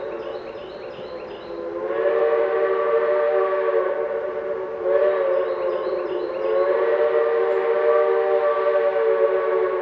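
Train whistle: a locomotive sounding a chord of several notes, quieter for the first couple of seconds, then two long blasts with a short break between them.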